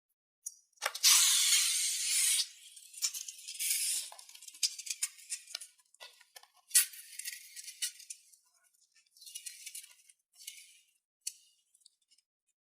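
Bursts of rustling and rattling from materials being handled while making slime, the loudest and longest about a second in, with shorter bursts and clicks after it.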